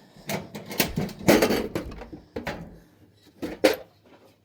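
Tools clattering and clanking as a toolbox is rummaged through: a run of sharp knocks and rattles over the first two and a half seconds, then two more clanks near the end.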